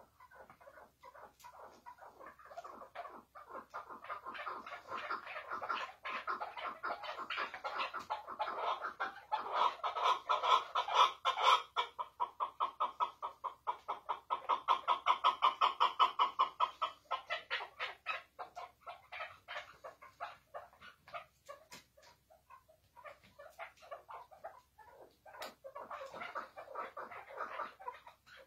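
Caged chukar partridges giving the rapid chattering call (hıngırma): a long run of quick repeated notes that swells to loud around the middle, fades, and comes back softer near the end.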